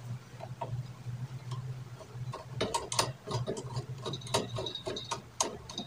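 Pop filter clamp being turned and tightened on a microphone boom arm: a run of quick clicks and rattles starting about two and a half seconds in, with a brief high squeak a little after four seconds.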